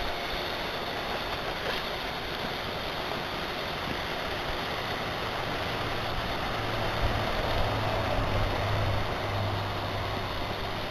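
G-scale model train running along an elevated garden track while clearing snow, its motor hum coming and going in the second half over a steady hiss.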